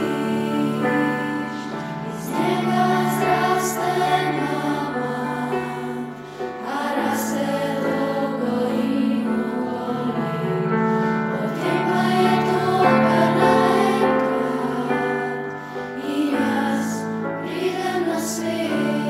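Youth choir singing a song with held accompaniment chords underneath.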